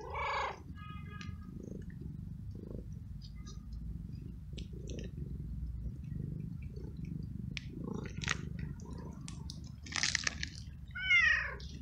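Domestic cat meowing: a short meow at the start and a louder meow falling in pitch near the end. Between them are scattered small clicks, a brief rustle about ten seconds in, and a low steady rumble.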